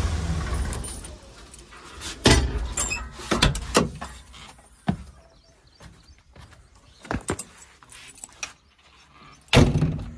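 JCB 3DX backhoe loader's diesel engine switched off with the key, running down and stopping within the first second or so. Then a string of sharp knocks and clunks from the cab door and the machine's body as the operator leaves the cab, the loudest one near the end.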